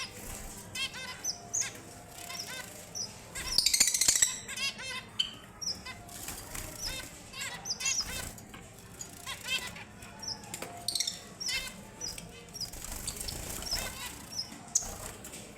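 Small finches, red avadavats, chirping in many short, high calls, with a louder flurry of sound about four seconds in.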